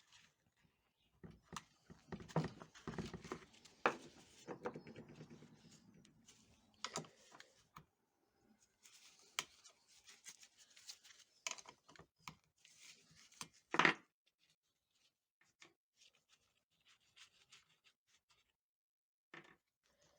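Tools and small parts being handled on a workbench. There are clicks, rattles and scrapes through the first half or so, then another cluster ending in a sharp knock about fourteen seconds in, and after that only a few scattered light clicks.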